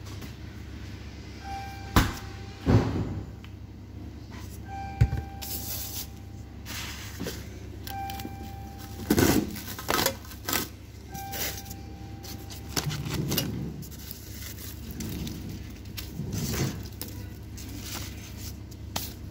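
Handling sounds of sushi prep: scattered knocks, taps and rustles as nori sheets and a bamboo rolling mat are set out on the counter. Beneath them runs a steady low kitchen hum, with a short repeated musical note coming back about every three seconds.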